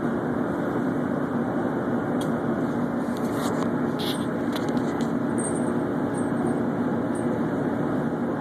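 Steady drone of a fishing boat's engine running at a constant speed, with a few light clicks about two to five seconds in.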